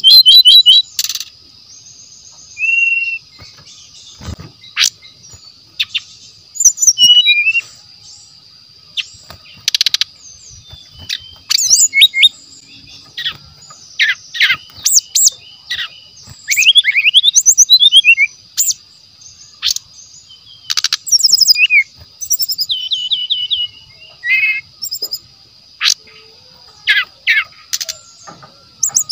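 Brown-chested jungle flycatcher (sikatan rimba dada coklat) singing: short, varied whistled phrases, fast trills and gliding notes one after another, with brief pauses. A steady high-pitched hum runs underneath.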